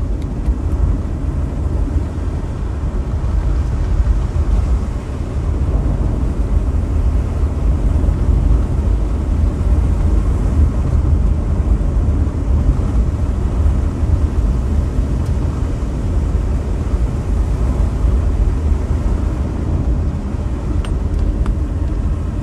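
Car driving on a wet dirt road: a steady low rumble of engine and tyres.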